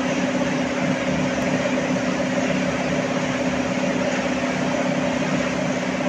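Stone-crushing plant machinery running: crushers and conveyors make a steady, loud mechanical noise with a constant low hum and a grinding rattle.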